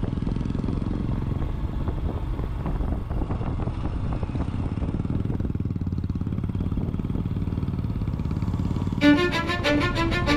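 Motorcycle engine running steadily as the bike rides along. Near the end, music with a repeating pattern of notes comes in over it.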